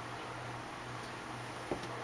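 Faint steady hiss and low hum of a quiet room, with one short knock near the end from handling a trading card at the desk.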